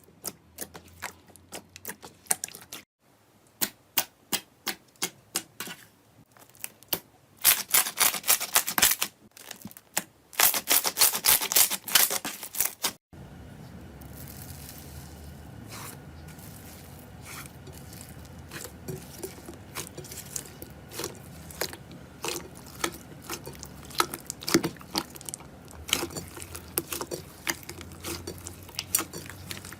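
Slime being pressed, poked and stretched by hand, giving sticky clicks and small popping sounds, with two longer runs of dense crackling in the first half. Partway through the sound cuts abruptly to another take, with a steady low background and scattered pops.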